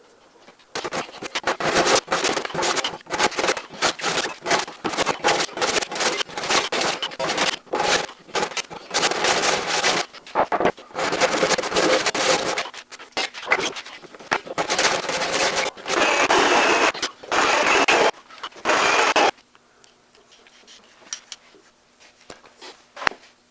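Rapid, repeated scraping strokes of a hand tool working across an oak slab's surface, stopping abruptly about nineteen seconds in, with a brief high squeak-like tone near the end of the strokes.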